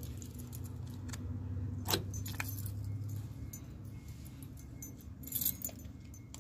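Small metal valve parts clinking as they are handled on a workbench: a few sharp clicks, the loudest about two seconds in and another near the end, over a steady low hum.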